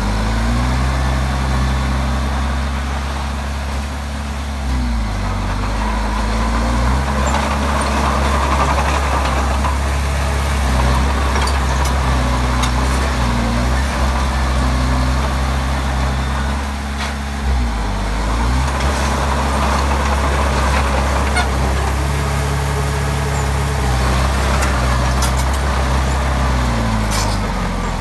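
Komatsu D20P bulldozer's diesel engine running under load, its pitch stepping up and down several times as it works, with a few sharp clicks near the end.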